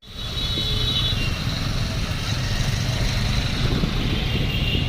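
Steady outdoor traffic noise: a low engine rumble, with a few short high tones in the first second.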